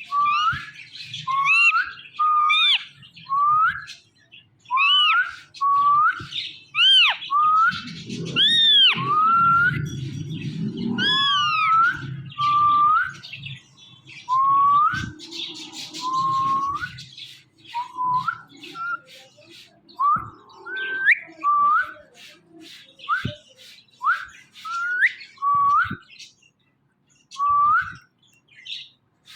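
Ringneck parrot giving a long series of short whistled calls, about one a second, most sliding sharply upward in pitch, with a few that rise and fall near the middle.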